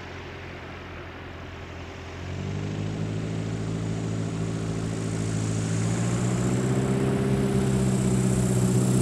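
Cessna 170B's engine and propeller droning on a slow, low-power landing approach. The drone comes in about two seconds in and grows steadily louder as the plane nears.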